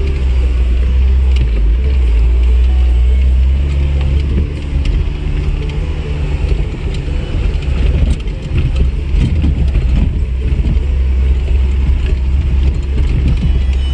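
Off-road vehicle's engine running low and steady as it crawls along a rough dirt track, with knocks and rattles from the bumpy ride coming more often from about eight seconds in.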